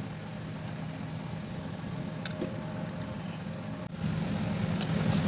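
An engine idling steadily as a low hum, louder after a short break about four seconds in, with a few light clicks over it.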